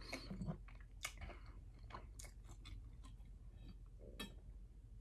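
Faint, irregular mouth sounds of a man chewing cooked shrimp, with small wet clicks and smacks. About four seconds in comes a slightly louder sound as he drinks water from a plastic bottle.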